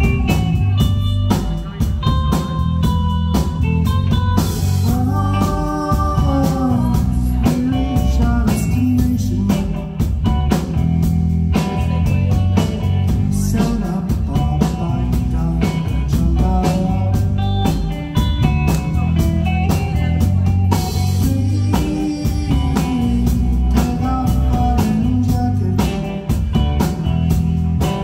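Live rock band playing amplified through the venue's PA: electric guitar, bass guitar and drum kit, with a steady beat throughout.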